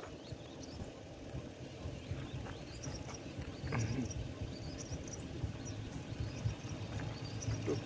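Open-air ambience: scattered faint, high, short chirps, like small birds, over a low steady rumble.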